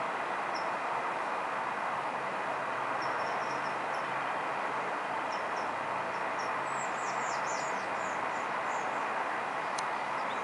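Steady, even rushing noise, with a few faint high bird chirps about two-thirds of the way through and a single light click near the end.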